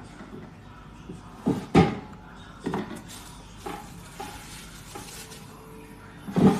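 A series of irregular knocks and clunks as an air fryer and its parts are handled, with the loudest knock about two seconds in and another near the end.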